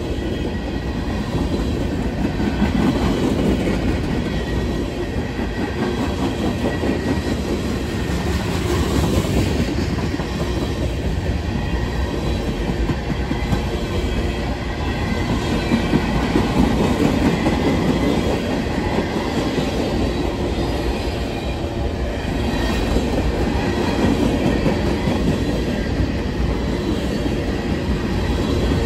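CSX freight train's cars rolling past at close range: a steady, loud rumble of steel wheels on the rails that holds for the whole stretch.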